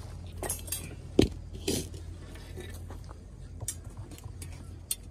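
Dishes and utensils clinking and knocking: a few sharp clinks, with one louder knock a little over a second in, over a steady low hum.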